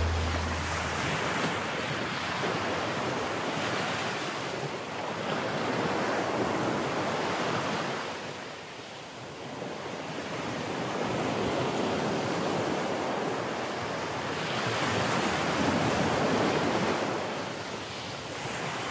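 Wind buffeting a phone's microphone: a rushing noise that swells and eases every few seconds.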